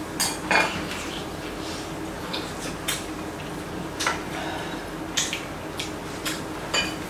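Metal chopsticks and spoons tapping and clicking against bowls and the pot as a meal is eaten: about a dozen light, irregular clicks and taps.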